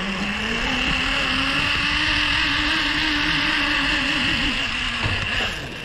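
Zip-line trolley running along a steel cable: a steady whirring whine that rises in pitch as it picks up speed, holds, then drops off about five and a half seconds in.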